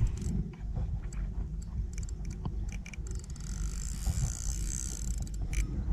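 Fishing reel working as a hooked carp is played in: scattered ticks, and a run of fast fine ticking with a hiss from about halfway to near the end, over a steady low rumble.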